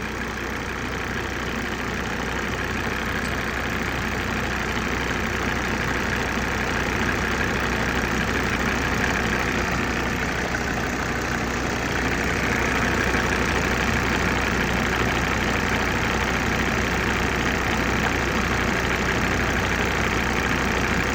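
Mercedes-Benz OM605 five-cylinder diesel engine idling steadily while still warming up after a cold start, before the glow plugs switch off. It gets slightly louder about halfway through.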